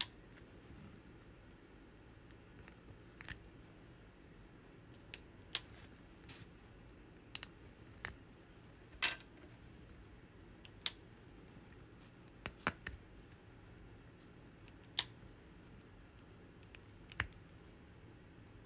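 Small sharp clicks and taps of diamond-painting work: round resin drills and the drill pen being handled, about a dozen irregular ticks with the loudest about halfway through, over quiet room tone.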